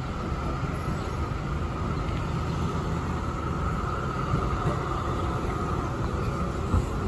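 Steady street traffic noise: cars driving past and an A2-class tram rolling by on its tracks, an even rumble throughout.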